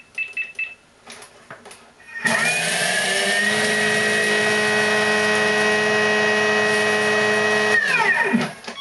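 Thermomix TM31 blade chopping parsley on speed 8 for its five-second setting. A few short beeps sound at the start. About two seconds in, the motor spins up with a rising whine, runs steadily and loudly, then winds down with a falling pitch near the end.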